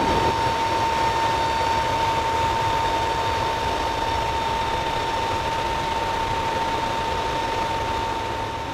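Aircraft engines heard inside the cabin in flight: a steady, loud drone with a constant high whine, easing slightly near the end.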